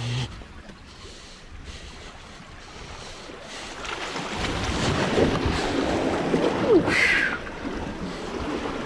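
Sea waves washing and swirling among shoreline rocks, with wind on the microphone, growing louder in the second half. A brief sharp sound stands out about seven seconds in.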